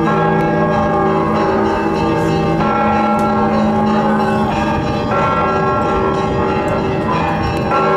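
Russian Orthodox church bells ringing in the Annunciation Cathedral's bell tower: several bells of different pitches struck again and again and sounding together in a continuous peal, the Sunday ringing.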